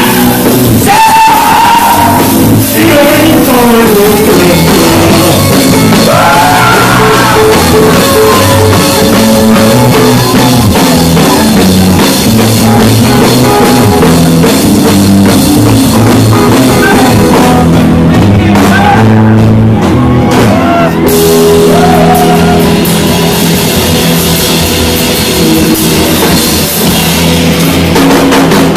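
Live rock band playing loud: electric guitars, a drum kit and several voices singing into microphones.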